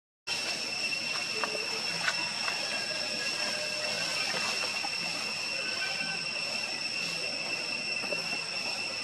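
Steady, high-pitched insect drone, with a few faint chirps here and there.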